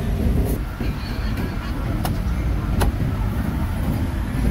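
Street background noise: a steady low traffic rumble, with three sharp knocks in the first three seconds.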